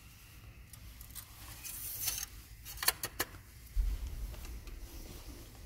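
Handling noise from a phone moved around an engine bay: scattered light clicks and rustling, with a dull thump about four seconds in.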